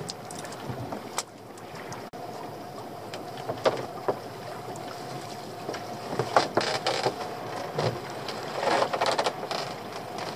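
Small open boat's outboard motor running steadily while a lobster pot line is hauled in by hand over the gunwale, with scattered knocks and rustles from the rope and the hauling.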